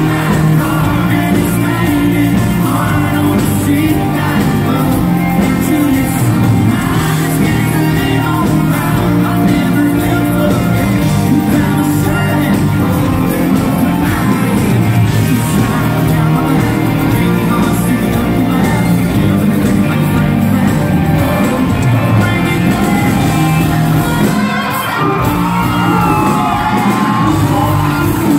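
A rock band playing live over a concert sound system: lead vocals over drums, bass and electric guitar. Near the end the singing gives way to a bending electric guitar lead line.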